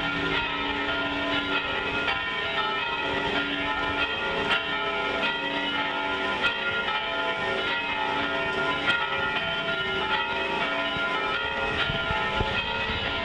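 Church bells pealing, with many overlapping strikes whose tones ring on into one another.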